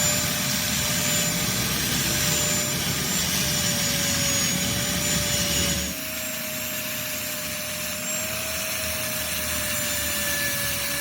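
Machine tool running with a steady whine over a hiss. The sound changes abruptly about six seconds in, then the whine carries on much the same.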